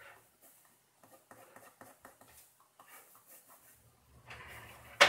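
Ballpoint pen scratching on paper in short quick strokes, with a louder rubbing stretch near the end, then one sharp knock.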